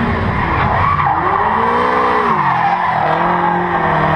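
Drift car engine revving up and down under throttle, with tyres squealing as the car slides.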